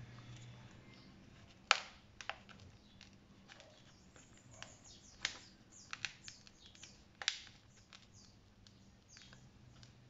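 A scattering of sharp plastic clicks and snaps as side-mirror glass is pried loose from its small plastic clips. The loudest comes a little under two seconds in, with others near two and a half, five, six and seven seconds.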